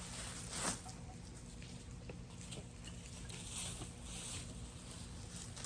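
Garden fork turning a pile of composting leaves: a short rustling scrape about half a second in, then scattered light crackles and rustles.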